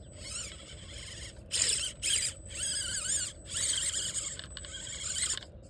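Electric motor and geared drivetrain of a small RC rock crawler whining in about five throttle bursts, its pitch rising and falling within each, as it climbs under load.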